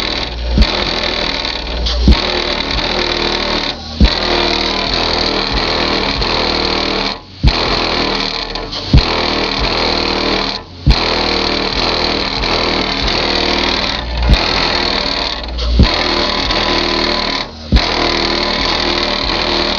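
Bass-heavy rap beat playing through a van's aftermarket stereo with new Orion HCCA subwoofers, which are being broken in. Sharp bass hits and short breaks in the beat repeat every few seconds.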